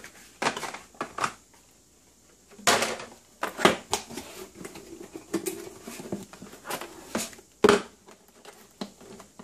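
Clear rigid plastic clamshell packaging being handled: irregular crinkles, scrapes and taps in short bursts, with a sharper knock near the end.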